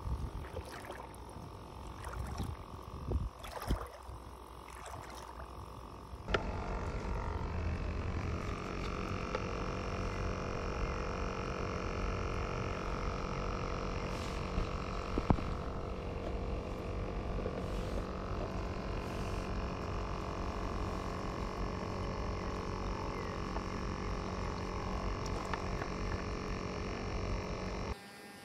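Feet splashing through shallow creek water for the first few seconds. Then a steady wash of water noise with a constant hum, from the bait bucket's battery-powered bubbler (aerator) running, and one sharp click near the middle as the bucket lid is handled.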